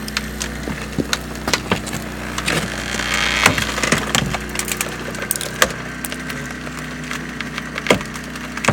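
Hydraulic rescue cutter shearing through a car's roof pillar: metal and trim creak and crack with sharp snaps as the blades bite, over a steady low hum.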